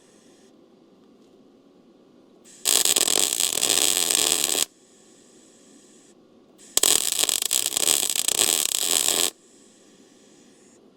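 Arc welding on a steel truck frame: two welds, each about two seconds of steady crackling that starts and stops abruptly, the first a little under three seconds in and the second near the middle.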